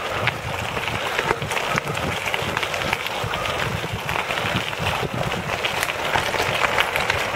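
Recumbent bike's tyres rolling over a loose gravel road: a steady rolling noise with many small clicks and rattles from the stones.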